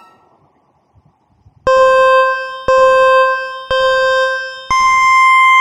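Countdown beep sound effect: three steady electronic beeps about a second apart at one pitch, then a fourth beep an octave higher, like a race-start countdown.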